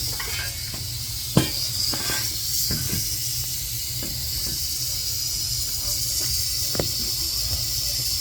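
Rattlesnake rattling its tail in warning: a continuous high, dry buzz, loud and echoing off the plastic cooler it is under. A sharp knock about a second and a half in, with a few fainter taps.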